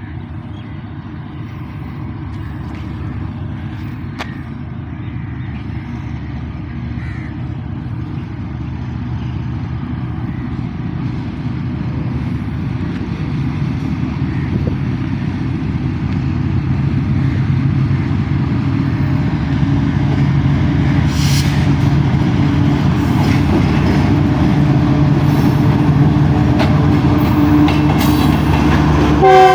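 Pakistan Railways GEU40 diesel-electric locomotive on a non-stop through run, its engine drone growing steadily louder as it approaches and comes alongside.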